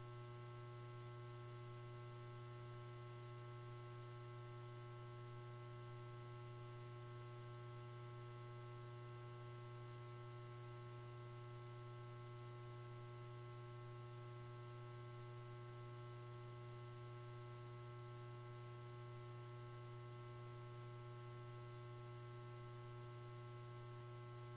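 Steady, unchanging low hum with a few fainter higher tones over faint hiss.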